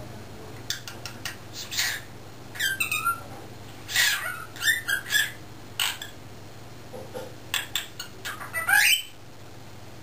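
Cockatiel squawking and chattering: a string of short, sharp calls and gliding whistled notes, the loudest call just before the calling stops.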